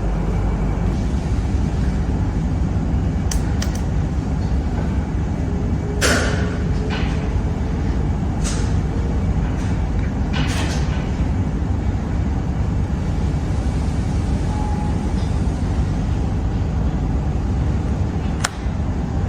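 Steady low rumble of background machinery noise, with a few sharp knocks and clicks scattered through it.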